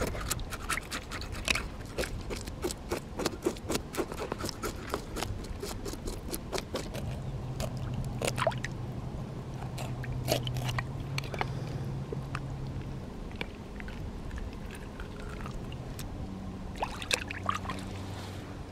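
A knife scraping and cutting through a freshly caught fish as it is gutted and cleaned on a rock, with many short clicks, scrapes and crunches. Near the end water splashes and drips as the fish is rinsed.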